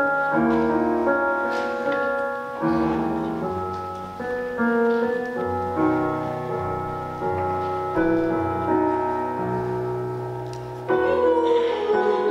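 Slow background piano music, sustained chords changing about every second or so. Near the end a singing voice with vibrato comes in over the piano.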